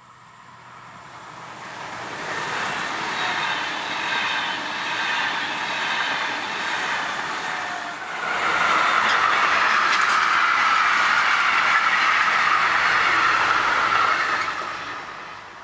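A double-deck electric passenger train approaching and passing, its rolling noise swelling over the first couple of seconds. About halfway, after a cut, a freight train of trailers and containers on low wagons rolls by close, a louder steady wheel-on-rail noise that drops away near the end.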